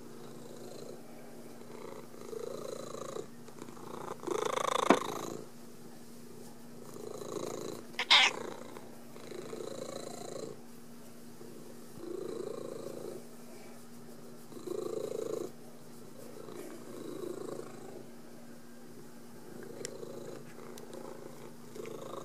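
Tabby cat purring while being stroked, the purr swelling and easing with each breath about every two to three seconds. Two brief louder sounds break in, one about five seconds in and a sharper one about eight seconds in.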